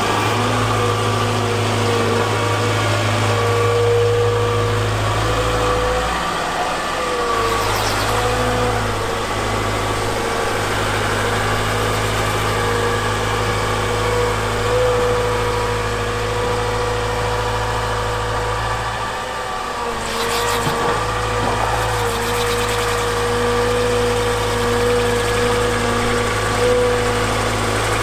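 The Volvo EWR150E wheel excavator's diesel engine runs steadily under load while it drives the rotating snow-sweeper brush. A slightly wavering whine sits over the engine.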